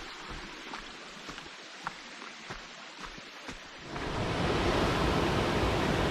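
Footsteps on the trail, then about four seconds in a steady rush of river water sets in abruptly and holds.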